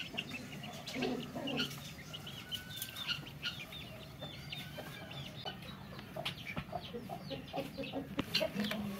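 Birds calling: chickens clucking, with many short chirps one after another and a few light clicks.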